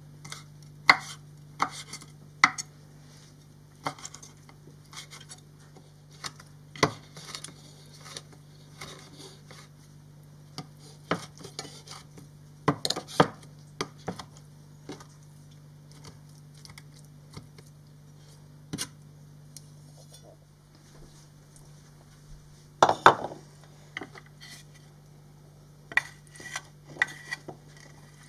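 Kitchen knife chopping olives on a wooden cutting board: irregular, sharp knocks of the blade on the wood in uneven runs, the loudest run late on. A steady low hum runs underneath.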